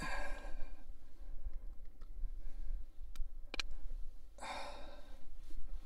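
Two breathy sighs from a man, one right at the start and one about four and a half seconds in, with two small sharp clicks between them over a steady low rumble.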